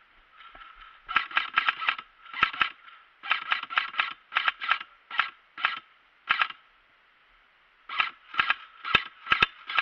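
Airsoft guns firing in quick clusters of sharp cracks, a few shots at a time, with a pause and then a faster run of shots near the end.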